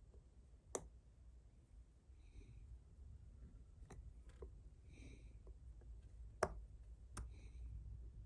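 Near silence broken by about four small, sharp clicks as watch parts and tools are handled during reassembly of a watch.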